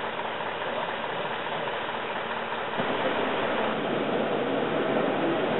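Fire engine idling with a steady low rumble; about three seconds in, the sound jumps a little louder.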